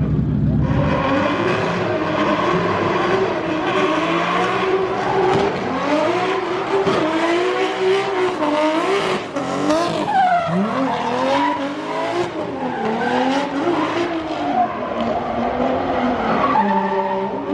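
Drift car engine revving hard, its pitch rising and falling again and again through the slides, with tyres squealing and skidding.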